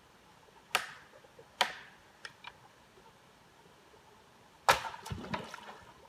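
Sticks and branches of a beaver dam cracking and snapping as the dam is pulled apart by hand: two sharp cracks about a second apart and a few light clicks, then the loudest crack near five seconds in, followed by a quick rattle of smaller cracks.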